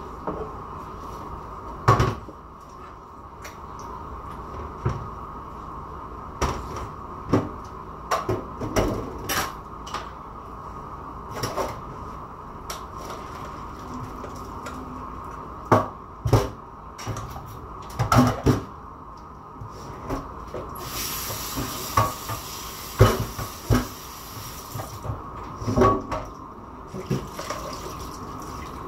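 Dishes and pots clinking and knocking irregularly at a kitchen sink, over a steady faint hum. About two-thirds of the way through, a tap runs for a few seconds.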